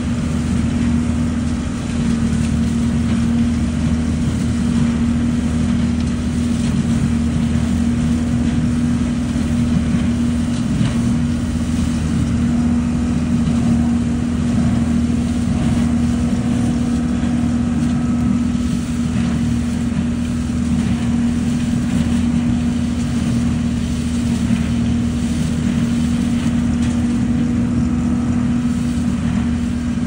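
ODB LCT650 truck-loader leaf vacuum running steadily, its engine and fan giving a constant hum as leaves are raked into the suction hose.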